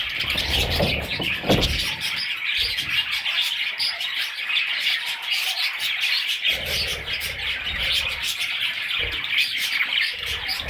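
A flock of budgerigars chirping and chattering nonstop, with a low rumble at times underneath.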